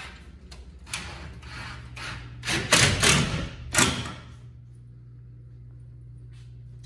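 Cordless drill driving screws into 3/4-inch plywood in a few short bursts, the loudest about three seconds in.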